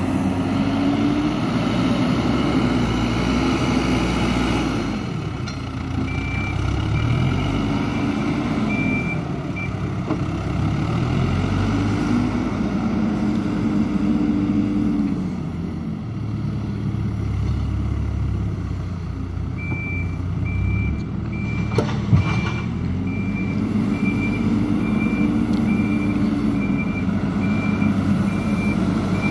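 Heavy vehicle's engine rising and falling in pitch in several swells, with a high reversing beeper pulsing about once a second in two stretches. A single sharp knock comes about three quarters of the way through.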